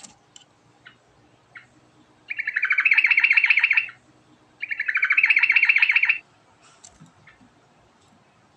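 Yellow-vented bulbul (trucukan) singing: two loud bursts of fast, rolling trilled notes, each about a second and a half long with a short gap between, and a few soft single chips before and after.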